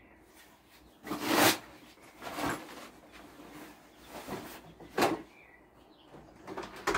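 A bag being picked up and handled: a few short rustles and bumps, the loudest about a second in and another sharp one around five seconds in.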